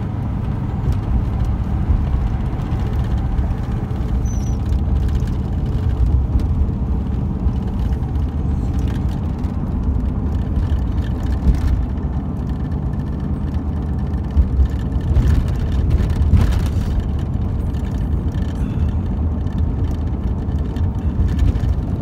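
Steady low rumble of a car being driven, engine and road noise heard from inside the cabin.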